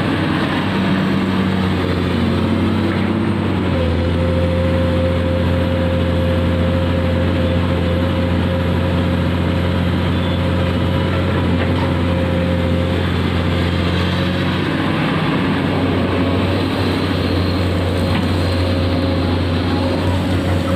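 Diesel engine of a Komatsu PC200 amphibious long-arm excavator running while the machine digs mud from the lake bed. Its note grows stronger about four seconds in and eases back around fifteen seconds, with a steady whine over it in between.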